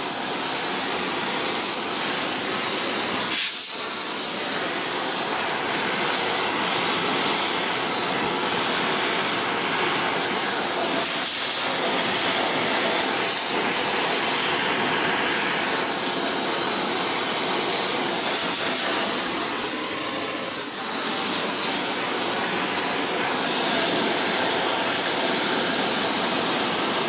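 Oxy-propane brazing torch flame hissing steadily as it heats bronze bearing halves, with a propane gas ring burning under the work. The hiss dips briefly a few times.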